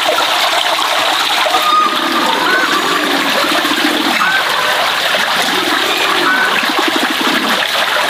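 Water running steadily from a pipe and splashing into a bucket, an even, continuous pour with some gurgling.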